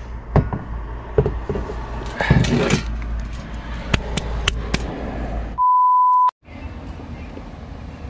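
Wind rumble on the microphone with several sharp clicks and knocks and a short scuffing burst, then a loud, pure steady beep lasting under a second, about five and a half seconds in, with all background sound cut out around it.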